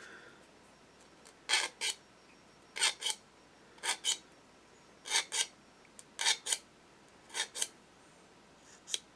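A hand sanding stick rasping on the sawn edge of a plastic 1:48 Spitfire fuselage half, cleaning up the cut. It goes in quick pairs of back-and-forth strokes, about one pair a second, starting about a second and a half in.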